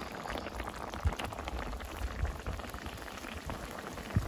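Fish stew in coconut butter and annatto sauce bubbling at a steady simmer in a pan, a dense crackle of small popping bubbles, with a light knock about a second in.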